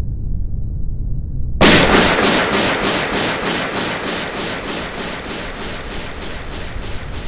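A low rumble, then a sudden loud burst of hiss about one and a half seconds in that pulses evenly, about three or four times a second, and slowly fades.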